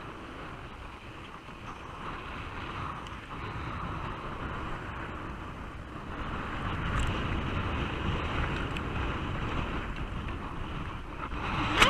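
Skis sliding downhill over packed, groomed snow: a steady scraping hiss with wind rumbling on the microphone, growing louder a couple of seconds in as speed picks up.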